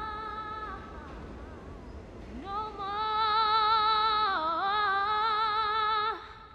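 A woman singing a gospel song. She holds a short note at the start, then about two seconds in swells into a long note held with vibrato for nearly four seconds, dipping briefly in pitch midway before breaking off.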